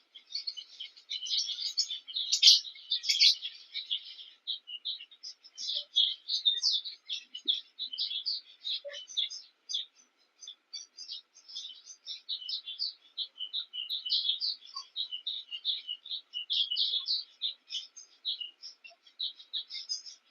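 A group of Cape weavers chattering continuously with rapid, dense chirps and buzzy notes, the sound of a weaver colony building nests.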